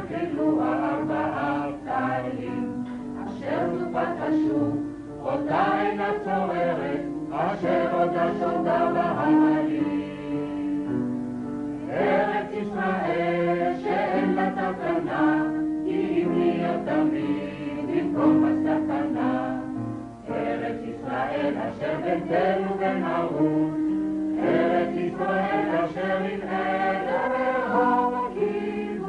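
A group of singers performing a Hebrew song in chorus, over a sustained accompaniment.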